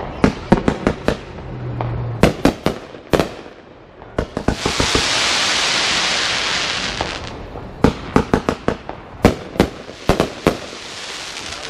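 Fireworks going off: rapid clusters of sharp bangs and pops, broken by a loud hiss lasting about three seconds in the middle.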